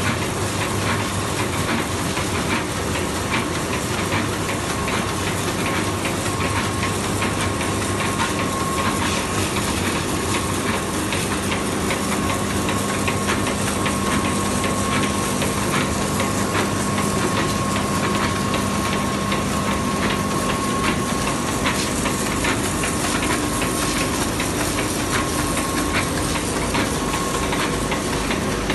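Focus 250 four-colour central-impression flexographic label press running, a continuous mechanical noise of rollers and moving web with a dense fine rattle and a faint steady whine.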